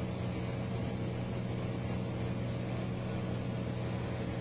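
Light aircraft's engine and propeller droning steadily in flight, heard inside the cockpit: an even low hum with a hiss of airflow over it.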